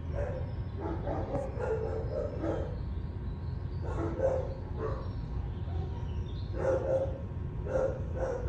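Dogs barking and yipping in several short runs of barks, over a steady low rumble.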